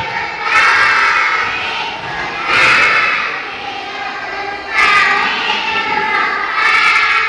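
A chorus of young children's voices in unison, rising and falling in phrases a second or two long.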